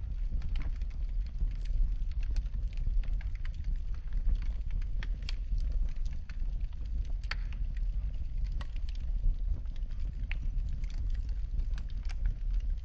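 Wood fire burning in a fireplace: a steady low rumble with frequent irregular pops and crackles.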